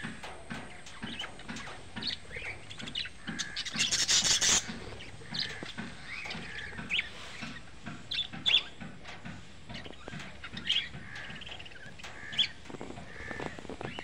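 A flock of budgerigars chirping and chattering, with short, high calls scattered throughout. About four seconds in comes a loud, harsh noisy burst lasting about a second.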